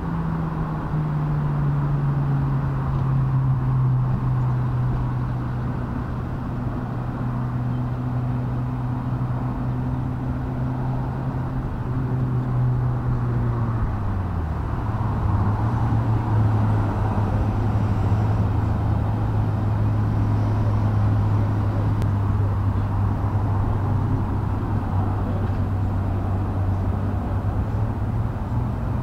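A motor hum running steadily, which drops a little in pitch about halfway through and then holds.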